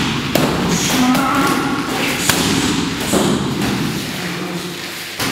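Kicks and punches landing on Muay Thai pads (pao): several sharp impacts at uneven intervals, the strongest a little past the middle.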